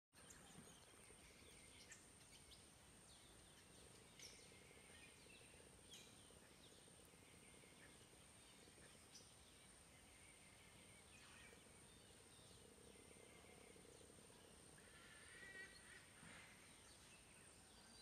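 Near-silent outdoor ambience: faint, scattered chirps of distant birds over a steady thin high whine, with a slightly clearer chirping call near the end.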